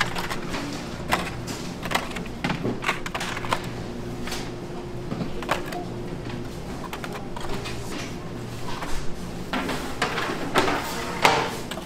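Aluminium foil trays and small plastic cups being handled and set down, a scattered string of light clicks, crinkles and knocks, over a steady low hum.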